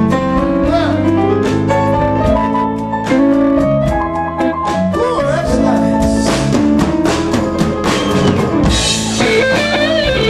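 Live blues-rock band playing an instrumental passage: drum kit, bass, electric guitars and organ-toned keyboard. In the second half an electric guitar lead comes forward with bent notes.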